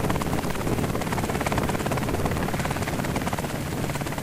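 Helicopter running, its rotor giving a rapid, steady pulsing.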